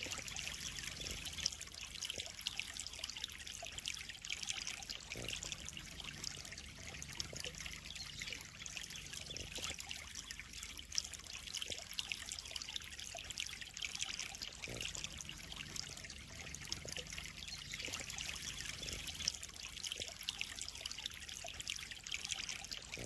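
Water trickling and splashing steadily into a koi pond, a continuous fine patter with no pauses.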